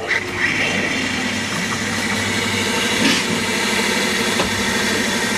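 A vehicle's machinery running steadily, with a constant high whine over a hiss. It cuts off suddenly at the end.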